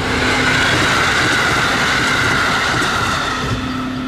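A vehicle passing close by: a loud, steady rush of noise whose pitch sinks slightly as it goes past.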